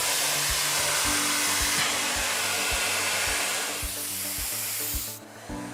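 Miele Complete C3 canister vacuum cleaner running with a loud, steady airflow hiss that drops away suddenly about five seconds in. Background music with a steady beat plays underneath.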